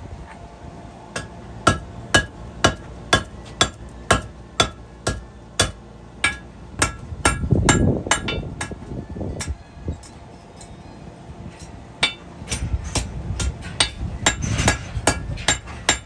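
Blacksmith's hammer striking hot horseshoe steel on an anvil as it is forged into a knife, in a steady rhythm of about two blows a second, each with a bright ringing note. The blows stop for a couple of seconds midway, then start again.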